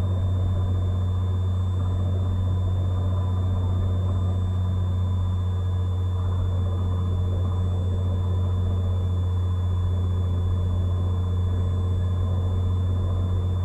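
Cessna 182's six-cylinder piston engine and propeller droning steadily in flight, heard from inside the cabin, with a thin steady high whine above the drone.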